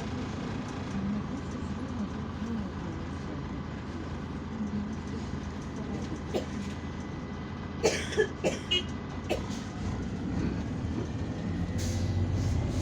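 An Irisbus Citelis 12M city bus heard from inside, its engine running steadily with cabin rattles. A few sharp clicks and a short squeak come about eight seconds in, and the engine grows louder near the end.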